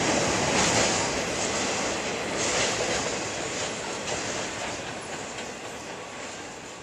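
Empty freight cars of a Norfolk Southern train rolling across a steel girder bridge: steady rail noise with wheels clicking over the rail joints, fading away as the end of the train passes.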